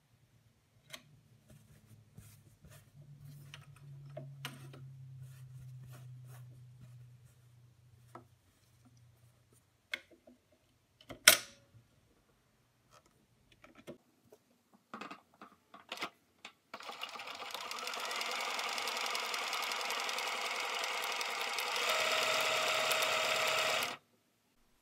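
Bernina 1230 electric sewing machine sewing a zigzag test stitch through two layers of fabric. Scattered handling clicks and a faint low hum come first, with one sharp, loud click about eleven seconds in. Near the end the machine runs steadily for about seven seconds and then stops suddenly.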